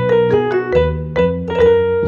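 Background music: a keyboard melody of struck notes over a bass line.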